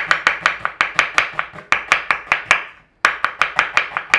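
Chef's knife slicing an onion thin on a bamboo cutting board: quick, even knife strokes hitting the board, about six a second, with a brief pause about three seconds in before the slicing carries on.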